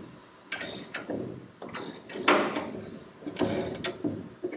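Socket wrench on a long extension working a fastener deep inside a Mustang front shock tower: irregular metal scraping and clunks in three or four short bursts.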